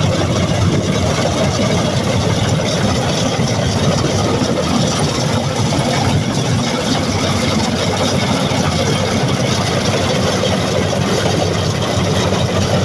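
Combine harvester engine running steadily.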